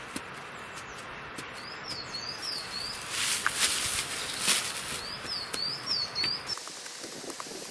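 A wooden stick being jabbed and scraped into soil to bore a small tunnel through the earth, with crunching and scraping loudest in the middle. A small bird repeats a short chirping phrase twice in the background.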